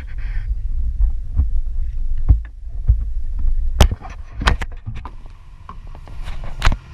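A canoe being paddled: several sharp wooden knocks and clicks from paddles and hands striking the hull and the mounted camera, over a low, uneven rumble.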